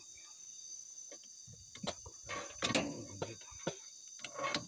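Night insects chirring steadily, with irregular knocks, clicks and scrapes as a large stingray is handled on a net in the bottom of a boat.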